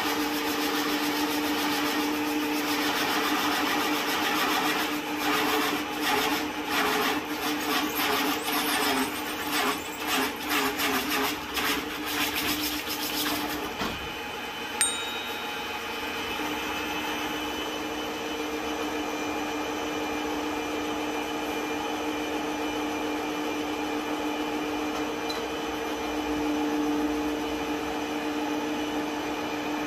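Woodworking machine running with a steady hum while its cutter hollows out a log. From about four to fourteen seconds in, rough uneven cutting noise rises over the hum; a sharp click follows just after, then the machine runs on more evenly.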